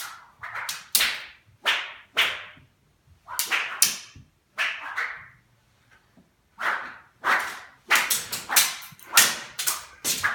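Whip-crack sound effects performed for foley: a string of sharp cracks, each with a short hissing tail. There is a pause of about a second around the middle, and the cracks come faster near the end.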